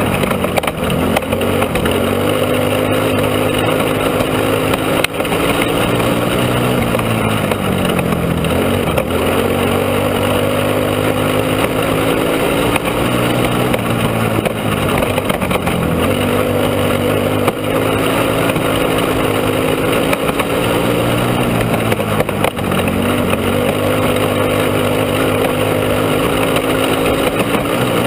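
Onboard go-kart engine running hard around a dirt oval. Its pitch drops briefly about every seven seconds as the kart slows for the turns, then climbs back up on the straights.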